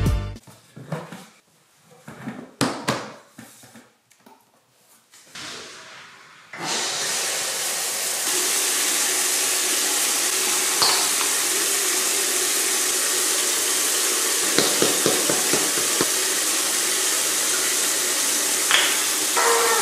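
A few scattered soft knocks and rustles, then a steady rushing hiss starts abruptly about six and a half seconds in and holds at an even level.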